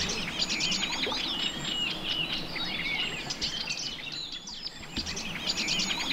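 Songbirds singing: a dense run of quick, high chirps and short trills, thinning briefly about four seconds in and picking up again near five seconds.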